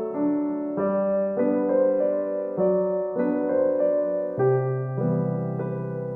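Background music: a soft piano or electric-piano tune, notes changing about twice a second.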